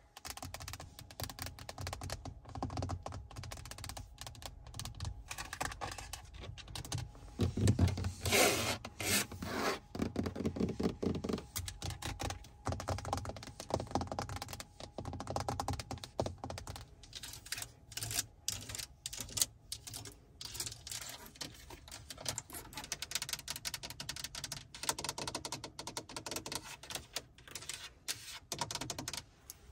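Rapid, irregular tapping and clicking of long fingernails on a Mercedes-Benz's infotainment touchscreen and centre-console buttons. A louder, denser run of taps comes from about eight to eleven seconds in.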